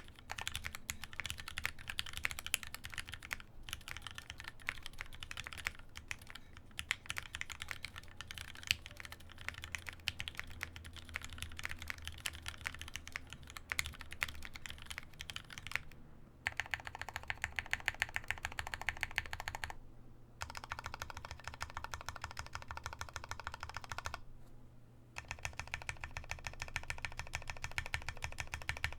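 Fast typing on a Baka60 60% mechanical keyboard: a dense, rapid run of keystroke clacks. It comes as several separate typing takes, broken by short pauses about 16, 20 and 24 seconds in.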